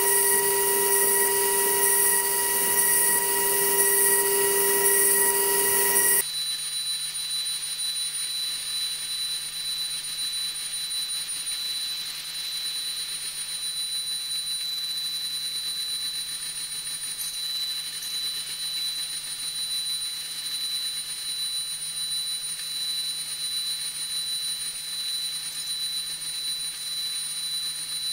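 2 kW high-frequency spindle of a DATRON M8Cube CNC mill running at high speed as a small cutter machines an aluminium front panel: a loud, steady whine with several steady tones and a hiss of cutting. About six seconds in it switches abruptly to a quieter, steady high whine.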